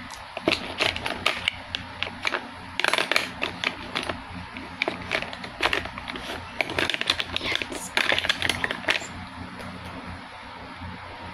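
Handling noise right at the phone microphone: irregular clusters of clicks, taps and rubbing as fingers work a small plastic makeup tube, dying away about nine seconds in.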